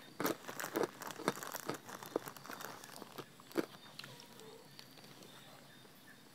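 A person crunching and chewing crisp pork cracklings (khaep mu) with rice. There are many sharp crunches in the first four seconds, then quieter chewing.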